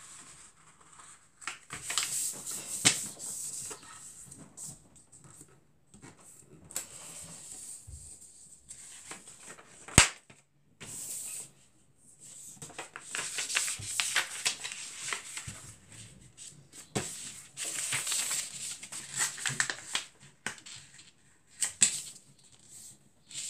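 A sheet of A4 paper being folded and creased by hand against a wooden desktop: rustling and sliding in irregular bursts, with a single sharp tap about ten seconds in.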